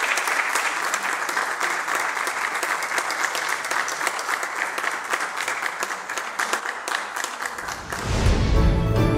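Audience applauding: many hands clapping together in a steady, dense patter. Music comes in near the end as the applause fades.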